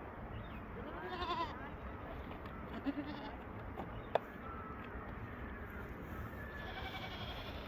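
Barbari goats bleating: a few wavering calls, about a second in, near three seconds and near the end, over a steady low background rumble, with one sharp click about four seconds in.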